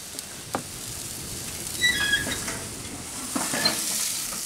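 Hot Polish sausages sizzling on a propane gas grill, a steady hiss that builds slightly toward the end, with a couple of light clicks about half a second in.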